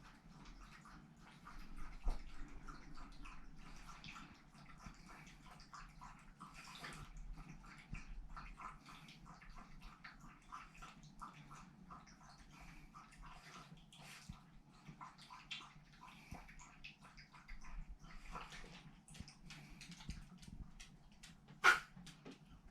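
Shiba Inu moving about: a steady run of small, irregular clicks and ticks, with one sharper click near the end.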